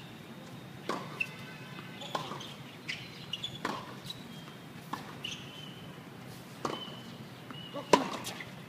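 Tennis ball knocks on a hard court, racket strokes and bounces, coming every second or two, the loudest near the end. Short bird chirps sound between them.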